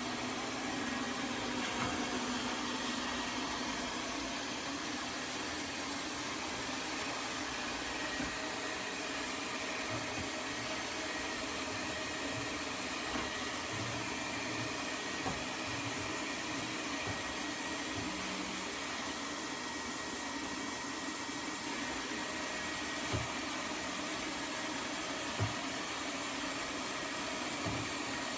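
Lefant M210 Pro robot vacuum running, a steady whir of its suction motor and brushes, with a few faint knocks now and then.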